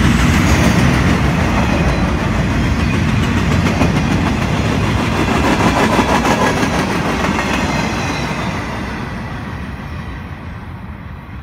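Freight cars of a welded-rail train rolling past, with steady wheel noise and clickety-clack. The noise fades over the last few seconds as the end of the train goes by.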